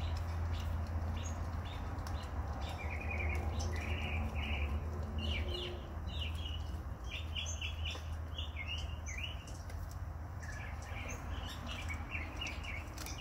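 Small birds chirping in a run of short trills, over a steady low hum, with scattered faint clicks of a pit bull crunching on a raw turkey neck bone.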